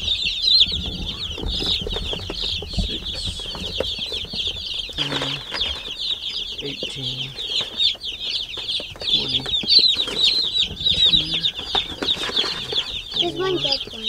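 A large batch of baby chicks peeping without a break, a dense chorus of overlapping high, short, falling chirps.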